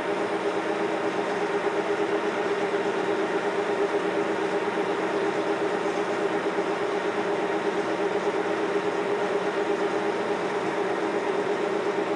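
1952 Monarch Series 60 engine lathe running with its power compound feed engaged, driving the compound slide: a steady hum of motor and gearing with several steady tones.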